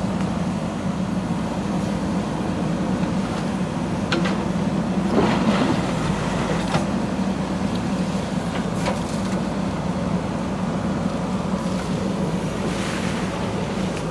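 JCB backhoe loader's diesel engine running steadily, with a few sharp knocks from the working digging gear.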